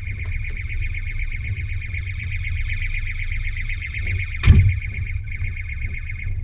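Car alarm sounding inside the Capri: a steady, rapidly pulsing tone over a low rumble. About four and a half seconds in, the driver's door slams shut with a loud thump.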